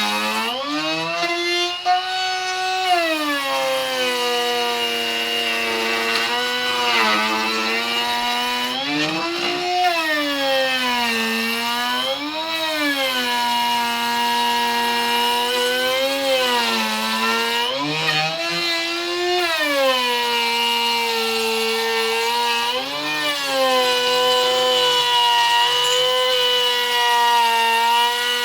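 Power tool cutting wood, its motor running continuously and changing pitch as the load comes and goes: a steady lower pitch with brief rises every few seconds.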